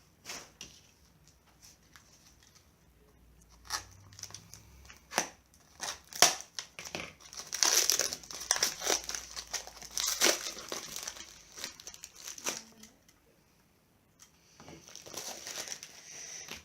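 Packaging being unwrapped by hand to get at smoke detectors: crinkling and tearing with irregular sharp clicks, busiest in the middle, with a short pause near the end before the rustling resumes.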